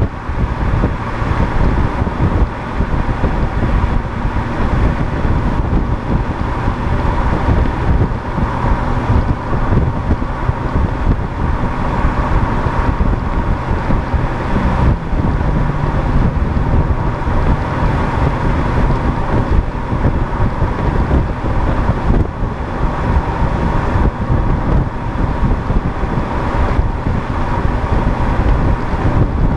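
Wind buffeting the microphone of a vehicle driving at highway speed, over steady road and engine noise.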